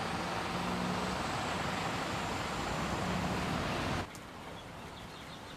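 Heavy rain on a wet street with a car's engine and tyres swishing past, then an abrupt cut about four seconds in to quieter, steady rain with a few faint drips.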